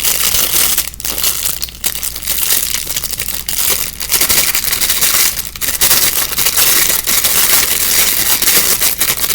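Plastic packaging bag crinkling and crackling continuously as it is handled and pulled at to get a small strawberry fidget toy out.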